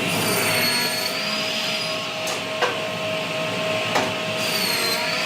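Log-processing machine running steadily with a high whine, with a few sharp knocks in the middle.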